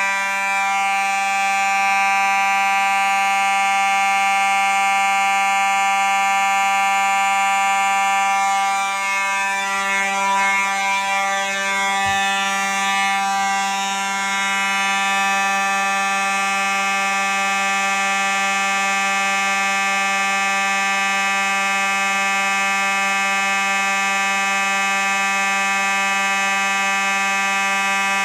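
Fire alarm sounding a steady, unbroken buzz during a system test.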